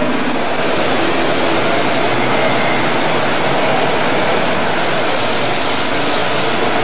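Go-karts running laps on an indoor track: a steady, unbroken engine drone.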